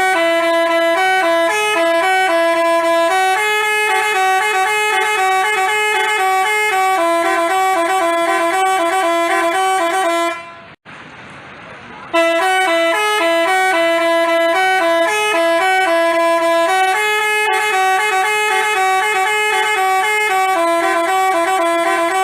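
Basuri telolet horn playing a multi-note melody, several horn tones sounding together and stepping from pitch to pitch. The tune breaks off about ten seconds in and starts again after a pause of a second or so.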